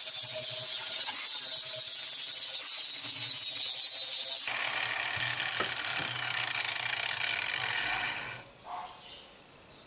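Angle grinder grinding a steel knife blank held in a vise: a steady, high-pitched grinding hiss that stops about eight seconds in.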